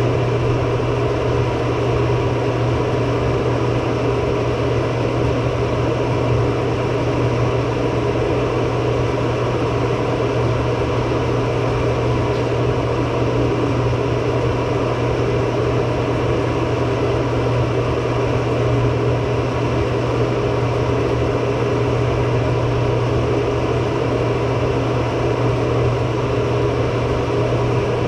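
Steady mechanical hum with a strong low drone and a few faint steady tones above it, unchanging throughout.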